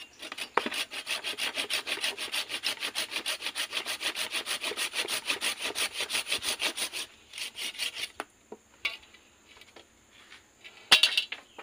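Curved pruning hand saw cutting through a freshly harvested anting putri (Wrightia religiosa) stem in quick, even back-and-forth strokes. The strokes stop about seven seconds in, followed by a few scattered scrapes and clicks and one sharp knock near the end.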